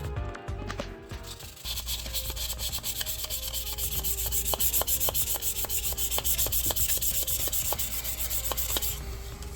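400-grit sandpaper rubbed in quick back-and-forth strokes over an oiled steel knife blade, wet sanding off the grime and printing. The scratching starts about a second and a half in and stops near the end.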